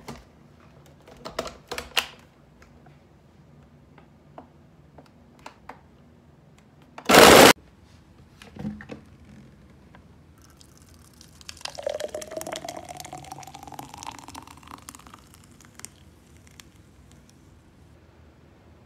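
A few clicks as the blender lid goes on, then a very loud, brief burst of a countertop blender running, about seven seconds in. From about ten seconds in, a thick fruit smoothie is poured from the blender jar into a stainless insulated tumbler for about five seconds, its pitch rising as the tumbler fills.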